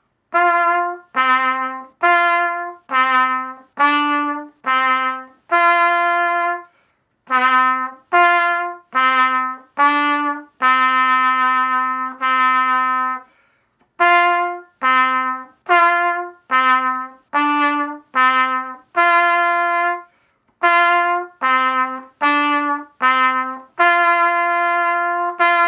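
A trumpet playing a slow, marching-style beginner tune, each note tongued separately and alternating mostly between low G and D, with a few longer held notes and one held to the end.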